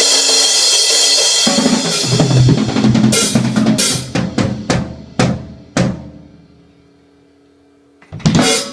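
Drum kit with Zildjian ZHT cymbals played in a solo: a cymbal wash, then a run of drum and cymbal hits that spreads out and rings away by about six seconds in, and one more loud hit near the end.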